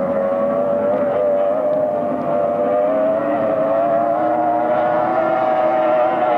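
Outboard engines of racing powerboats running flat out at speed: a loud, steady, high-pitched drone whose pitch creeps slowly upward.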